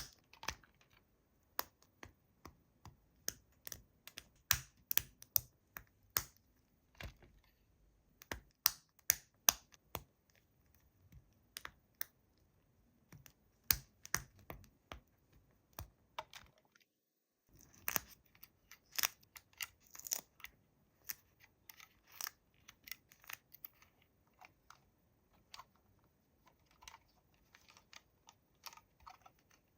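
Toys and their packaging being handled: irregular sharp plastic clicks and scratches, sometimes in quick clusters, broken by about a second of dead silence near the middle.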